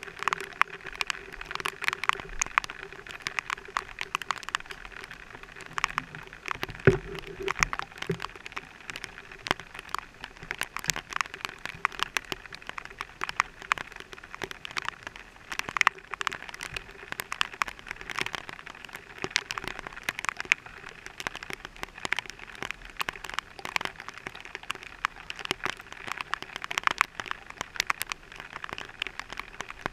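Raindrops hitting a helmet-mounted camera's housing: dense, irregular ticks and taps, with a faint steady hum underneath.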